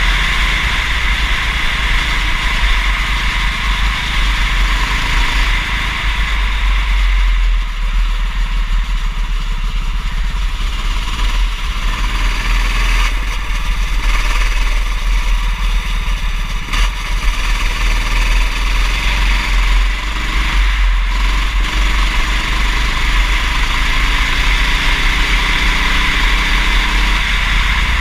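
Kart engine running at race pace, its pitch rising and falling with throttle. A loud steady hiss and a deep rumble lie over it, from a wet race.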